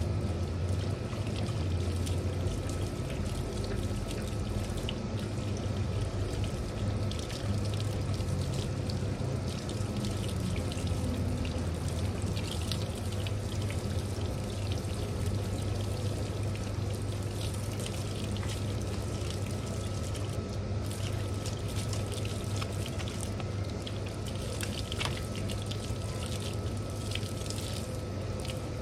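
Water running steadily from a chewed-up garden hose, pouring and splashing, with many small splashes, over a steady low hum.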